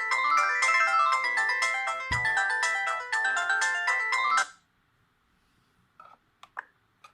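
An Audiovox CDM 8400 polyphonic ringtone playing on a Brionvega N7010 phone's speaker: a quick, busy tune of many layered notes that cuts off suddenly about four and a half seconds in. A few faint short ticks follow near the end.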